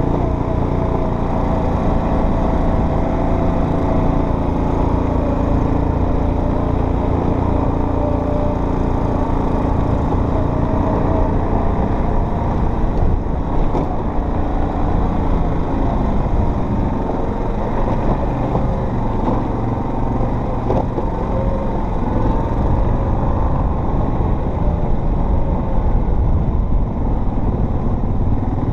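Off-road vehicle's engine running steadily while driving a trail, its pitch drifting slightly as the throttle changes, over a constant rumble of the ride.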